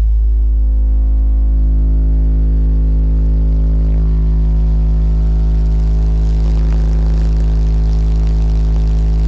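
Toro Tech Force 8 car subwoofer playing a single steady low bass test tone in a sealed vehicle cabin, driven at about 100 watts for an SPL run that reaches about 136 dB. A faint rattle joins briefly about two-thirds of the way through.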